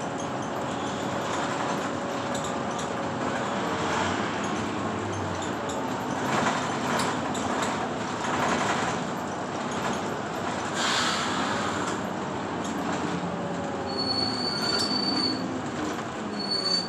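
A city bus heard from inside the passenger cabin: engine and drivetrain running with a steady road rumble and some gliding whine, swelling a few times. A short high-pitched squeal comes twice near the end.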